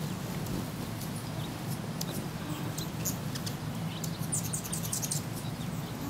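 Short high bird chirps, a quick run of them about four seconds in, over a steady low background hum.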